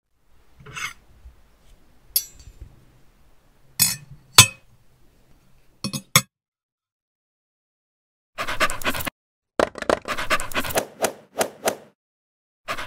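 Chopsticks and a ceramic plate clinking: single sharp clinks every second or two, then a quicker run of clatter near the end.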